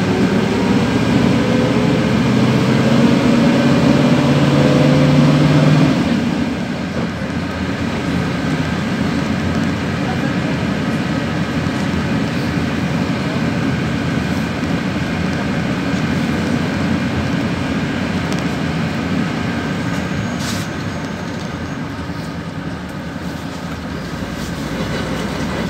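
PAZ-32054 bus engine and road noise heard inside the cabin. The engine note rises as the bus accelerates, then cuts back sharply about six seconds in, and the rest is a steady rumble with tyre and road noise while cruising.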